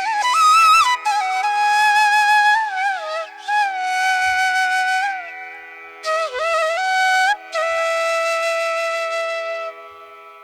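Background music: a flute melody with sliding, ornamented notes over a steady drone, pausing briefly twice and fading out near the end.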